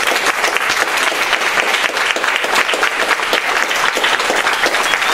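Audience applauding steadily, a dense patter of many hands clapping, just after an acoustic guitar song has ended.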